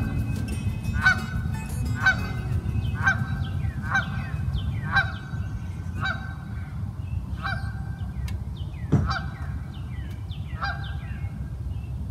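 Geese honking repeatedly, about one call a second, over a steady low rumble. A single sharp knock about nine seconds in.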